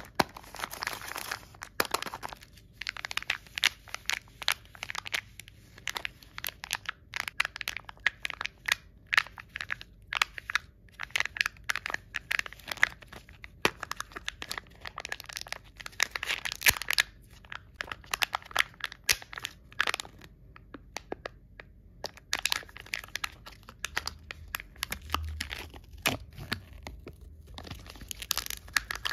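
A Kinder Joy plastic egg being handled and opened: the plastic shell clicks and cracks apart, and its foil seals and wrapper crinkle and tear as they are peeled off. Dense runs of small clicks and rustles with short pauses between.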